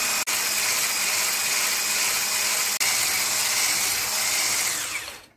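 Electric hand mixer running steadily, its wire whisk beaters whipping egg whites and sugar into a thick French meringue. The sound drops out for an instant twice, then fades away near the end.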